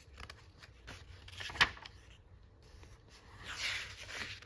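Magazine pages being handled and turned: a sharp paper snap about one and a half seconds in, then a longer rustling swish near the end.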